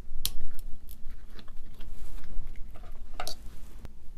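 Screwdriver and wire leads clicking and scraping against a switch's terminal screws as the leads are unscrewed, with the plastic handle housing being handled. Irregular sharp clicks, the loudest a little after the start and about three seconds in.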